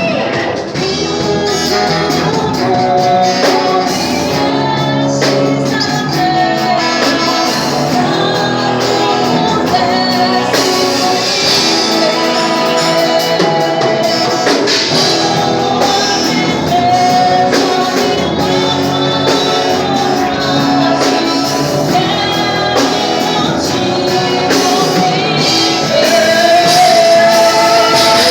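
Gospel worship song: voices singing over band accompaniment.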